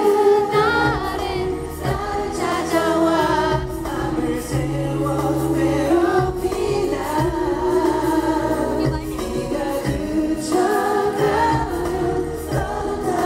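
Male K-pop group singing a slow pop ballad live into handheld microphones over a backing track, the melody carried by one voice after another above held low accompaniment notes.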